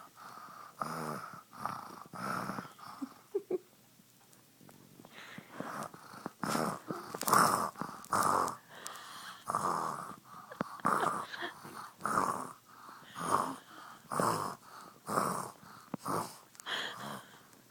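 A young boy pretending to be asleep and snoring loudly on purpose: a run of short, exaggerated fake snores at about one a second, with a brief pause a few seconds in.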